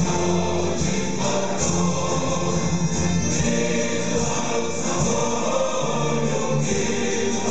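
Live music from a military brass band, with a choir singing along.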